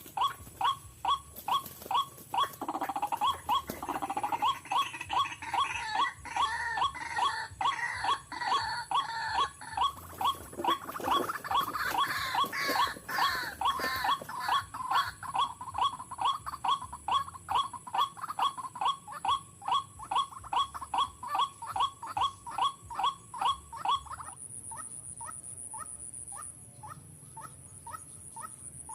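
White-breasted waterhens calling: a steady run of repeated 'wak wak' notes, about three a second, with a second, less regular voice calling over them in the first half. The notes drop to a fainter level about 24 seconds in.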